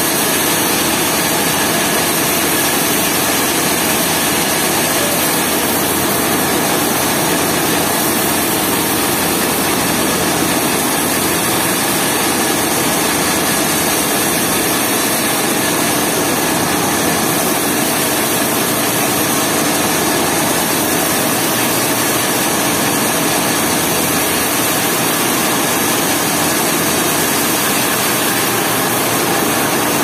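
Large vertical band sawmill running steadily as its blade cuts a wide slab lengthwise from a trembesi (rain tree) log. The noise is loud and unbroken, with a few steady tones over a dense hiss.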